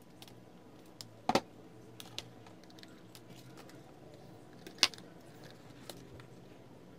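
Small clicks and knocks of wires and hand tools being handled on a workbench, with two sharper taps about a second in and just before five seconds, over a faint steady low hum.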